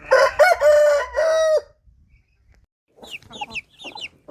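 Rooster crowing once, a full cock-a-doodle-doo lasting about a second and a half. After a short pause comes a run of quick, short, high calls, each falling in pitch, about five a second.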